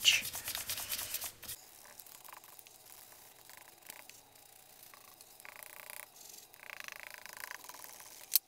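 Foam ink-applicator brush rubbed over paper edges in quick strokes for about a second and a half, then much fainter rubbing, with one sharp click near the end.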